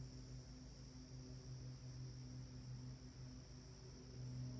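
Faint, steady low drone of a Cessna 182 Skylane's piston engine and propeller, swelling slightly near the end, over a steady high insect trill.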